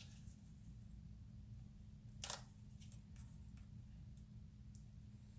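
Quiet workbench room tone with a steady low hum. One sharp click about two seconds in and a few faint ticks come from small parts being handled.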